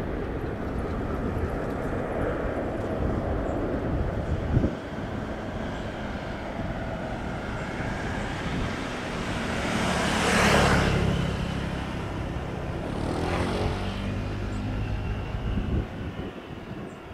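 Airbus A380's four jet engines heard from a distance on approach: a steady low rumble that swells into a loud whoosh about ten seconds in and fades, with a second, weaker swell a few seconds later. A short sharp knock sounds about four and a half seconds in.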